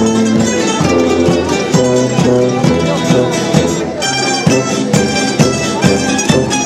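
Mandolin ensemble playing southern Italian folk music: mandolins and guitar plucking and strumming over a steady beat, with a tuba on the bass line.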